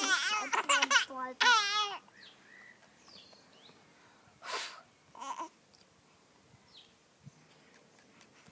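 A young child's high-pitched babbling squeals for about two seconds, then two short puffs of breath, a child blowing on a bubble wand, about four and a half and five seconds in.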